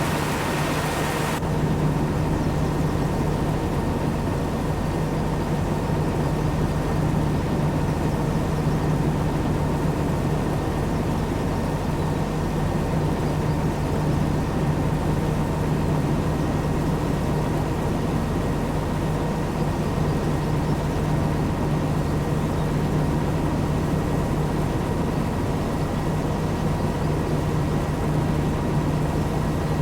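Heavy farm machine's engine running steadily at a constant speed, a low hum with a faint whine on top. A higher hiss over it drops away about a second in.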